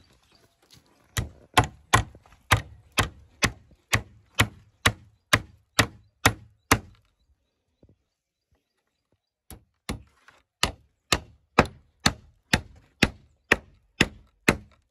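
Hammer driving nails into a wooden plank: two runs of steady blows at about two a second, with a pause of about three seconds between them.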